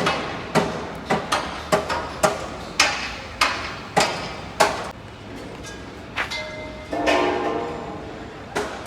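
Hammer blows on a construction site, struck at an uneven pace of about two a second, each with a short ringing tail; they stop about five seconds in. A short pitched sound follows near the end.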